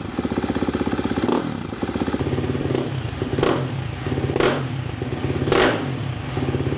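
KTM XC-F 350's single-cylinder four-stroke dirt bike engine idling with a rapid, steady exhaust beat, blipped repeatedly with short throttle revs about once a second.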